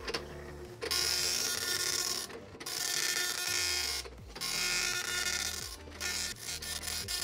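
Commodore MPS 803 dot-matrix printer printing its self-test page: the print head's pins strike the ink ribbon in three long passes of about a second and a half each, with short pauses between them. Near the end they give way to a run of shorter, choppier passes.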